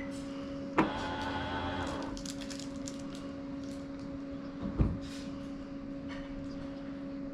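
Combo vending machine's elevator delivery mechanism at work. A click, then a small electric motor whines for about a second, and a heavy thump follows a few seconds later, over a steady hum.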